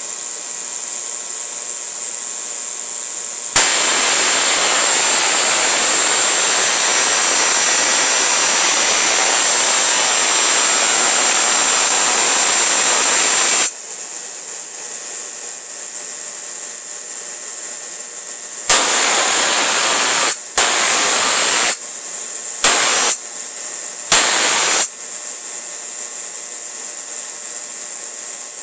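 Homemade 15 kV DC spark gap arcing across a short gap: a loud continuous arc strikes with a sharp snap about three and a half seconds in and runs about ten seconds, then strikes four more times for under a second to a second and a half each. A steady low hum runs between the arcs.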